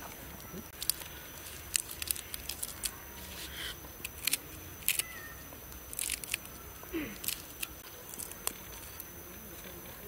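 Fresh leafy herbs crackling and rustling as they are pressed by hand into a hollowed-out coconut, heard as a string of short, sharp clicks. Partway through, a knife cuts and scrapes among the leaves inside the coconut shell.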